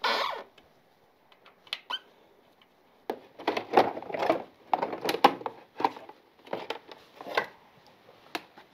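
Plastic fairing panel of a Suzuki GSX-R being unbolted and pulled off the frame. A few light clicks from the Allen key and bolts, then from about three seconds in a run of clattering and rubbing as the panel comes away, and scattered clicks near the end.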